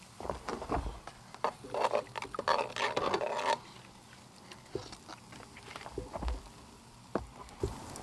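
Metal tongs clicking and scraping on a wire grill rack while butcher paper crinkles, as marinated beef strips are laid onto the grate over campfire coals. A thick run of crinkling and clatter fills the first half, then scattered single knocks.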